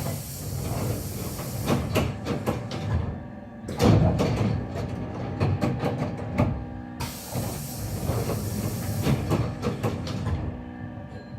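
Hankyu 7300-series train doors closing: three spells of hissing and clattering, each about three seconds, with the door chime of the coupled 8304F set heard leaking through, a chime known for its abnormal sound.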